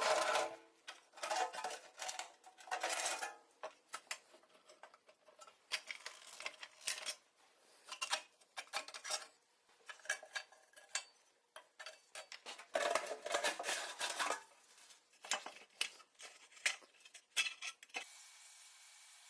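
Irregular clinking, scraping and clattering of metal tools and parts being worked by hand. About eighteen seconds in this gives way to a steady hiss.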